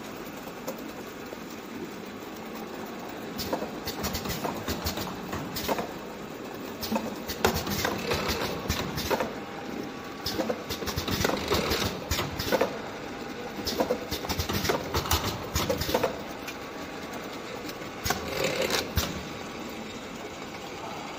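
Automatic jerry-can filling and capping line running: a steady mechanical hum with many irregular clicks and knocks from the conveyor and capping machine, busier from about three seconds in.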